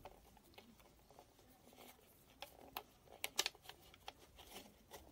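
Faint crinkling and light clicks of a plastic bottle being handled while a rubber band is stretched over the stocking mesh on its neck, with the sharpest clicks in the middle.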